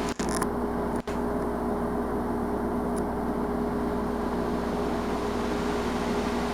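A steady machine hum with two constant low tones, broken by two very short dropouts in the first second.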